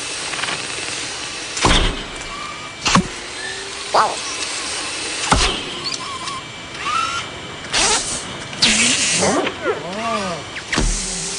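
Animated robot sound effects for a small tracked robot: mechanical whirs, sharp clunks and clicks, and short chirping and gliding electronic tones, over a steady rushing hiss from a shop vacuum.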